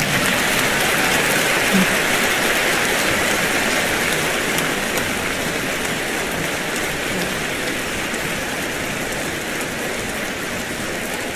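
Large audience applauding, a steady wash of many hands clapping that slowly fades.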